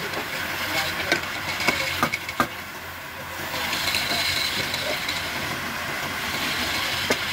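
Wood lathe running while a hand-held steel turning tool cuts into the end of a spinning wooden cylinder: a steady scraping hiss of the cut with a few sharp ticks, easing off briefly about three seconds in.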